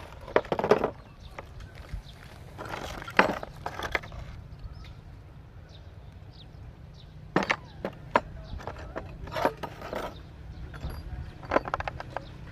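Scattered knocks and clatters of a blue plastic tool case and its loose metal parts being handled and rummaged through by a monkey, a few sharp clicks at a time with quieter shuffling between.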